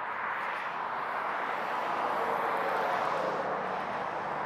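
A passing road vehicle: a steady rushing noise that swells to its loudest about three seconds in, with a faint low hum near the end.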